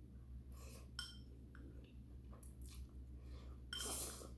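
A person eating ramyeon noodles with chopsticks: faint chewing and slurping, a light clink of chopsticks on the bowl about a second in, and a louder half-second slurp near the end.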